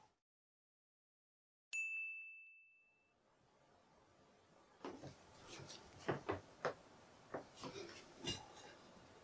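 A single clear bell-like ding about two seconds in, ringing out for about a second. From about five seconds in come a run of light taps, knocks and scrapes of a silicone spatula scooping chocolate buttercream onto a chocolate cake layer on a cake board.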